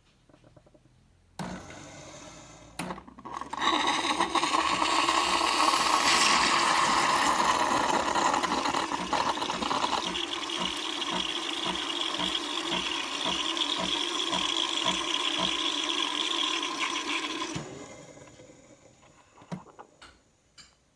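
Nespresso Lattissima Pro espresso machine running its cappuccino cycle. A couple of clicks come first, then the pump hums and hisses loudly for about fourteen seconds. Partway through, the sound changes and takes on an even pulsing of about two beats a second, then it dies away.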